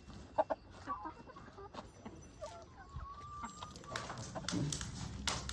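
Chickens clucking softly with short calls, one drawn out and rising slightly about three seconds in. Clicks and knocks of something being handled come in near the end.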